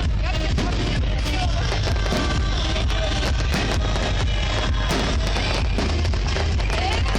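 Music playing over a fireworks display, with firework bangs and crackling throughout.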